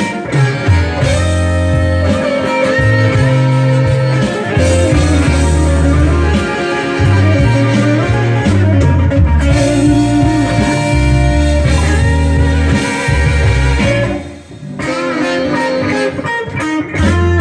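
Instrumental intro to a slow blues, electric guitar playing over a bass line.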